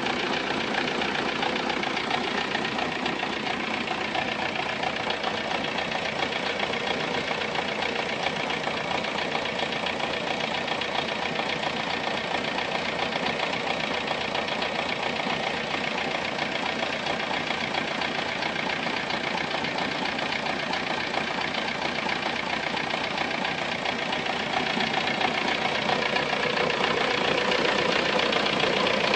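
Volkswagen Golf 3 engine idling steadily with a fast, even ticking clatter running through it: the strange engine noise the owner asked to have diagnosed. It gets a little louder near the end.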